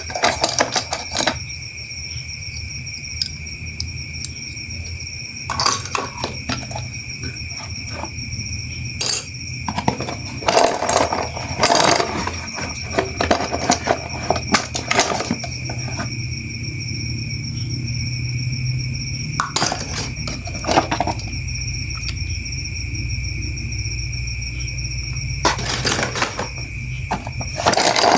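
Plastic toy train parts being handled and clicked together during unboxing and assembly, in several bursts of clicks and rattles over a steady high-pitched whine.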